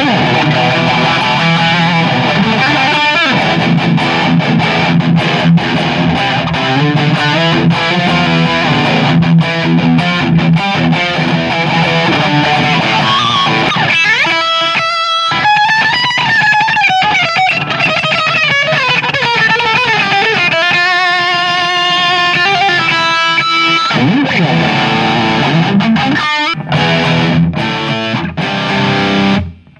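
Distorted electric guitar played through a Marshall JCM 2000 tube amp: chords and riffs, with sliding and bent notes in the middle. The playing drops out briefly just before the end.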